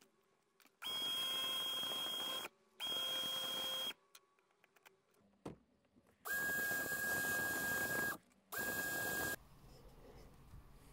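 Cordless drill spinning a small steel scissor screw held in its chuck against sandpaper, run in four short bursts with near silence between. Each burst is a steady motor whine over a gritty hiss, higher-pitched in the first two bursts and lower in the last two.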